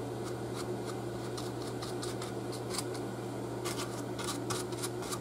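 Small paintbrush dabbing and scratching over a painted foam sculpture as it is dry-brushed with wax paste: a string of light, irregular ticks that grows busier near the end, over a steady low hum.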